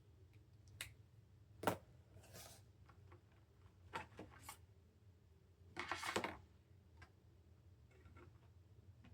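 Faint drawing and desk-handling noises: a few sharp clicks and taps, and two short scratchy rustles, over a low steady hum.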